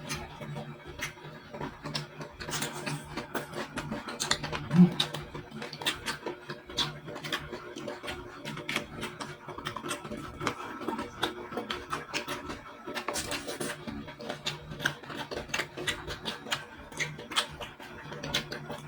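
Close-miked chewing and lip-smacking while eating seafood: a dense run of quick wet mouth clicks, with one louder snap about five seconds in, over a steady low hum.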